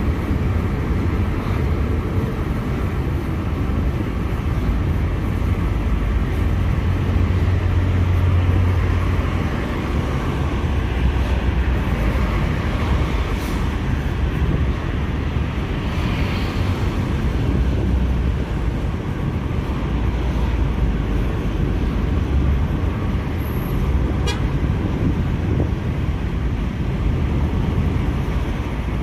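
Steady road and engine noise inside a moving car's cabin, a constant low rumble.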